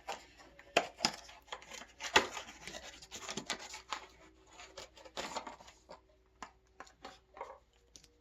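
Hands handling and fitting small bike parts: a run of sharp clicks, taps and scraping, loudest about two seconds in, sparser in the last couple of seconds.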